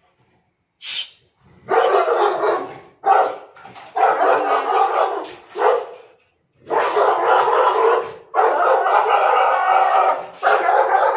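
Saint Bernard barking loudly at a monkey, in long rapid runs of barks that start about two seconds in and break off for brief pauses several times.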